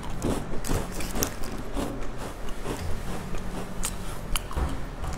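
Crisp biscuit crunched by repeated bites and chewing close to the microphone, a quick, irregular run of sharp cracks.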